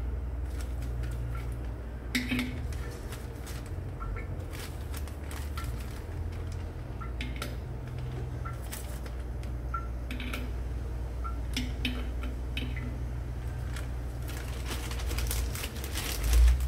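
Metal pliers clicking and scraping at a basin's waste outlet as the dirt clogging it is picked out, in scattered irregular clicks over a steady low hum.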